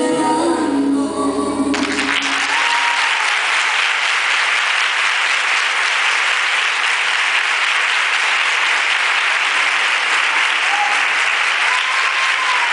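Recorded bachata music ends abruptly about two seconds in, and an audience applauds steadily for the rest of the time.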